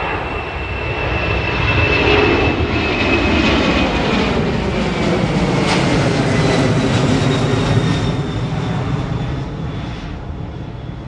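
Heavy jet airliner's engines at takeoff power during its takeoff roll. The sound grows louder about a second in, carries a high whine that slowly falls in pitch as the aircraft passes, and fades over the last few seconds.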